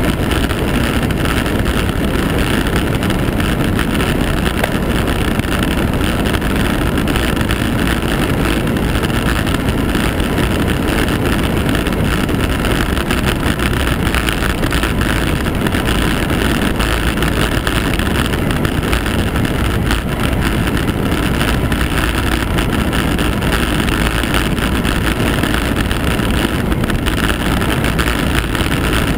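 Steady wind rush and buffeting on the microphone of a camera moving fast down a mountain road, a constant low noise without any clear change.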